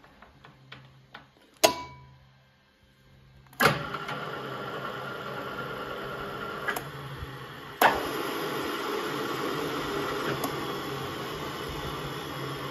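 EFI FC1201 geared-head drill press with a three-phase motor, being stopped and restarted: its running dies away after a sharp switch clack, then another clack about four seconds in and the motor and gearbox start and run steadily. A third clack about eight seconds in and it runs louder.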